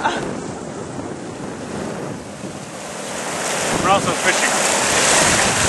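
Sea water rushing and splashing along a sailboat's hull as it sails fast, with wind buffeting the microphone. The rush grows louder and hissier from about three seconds in.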